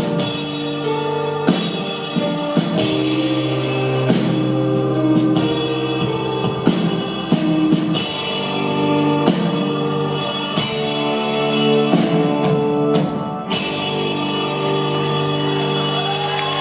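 Live band playing an instrumental passage near the close of a song: held chords over regular drum and percussion hits.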